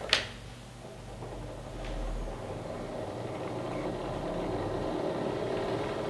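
Gramophone & Typewriter Company Monarch gramophone (circa 1910): a sharp click as its turntable is released, then the spring-wound clockwork motor and turntable whirring steadily, growing gradually louder as the turntable comes up to speed.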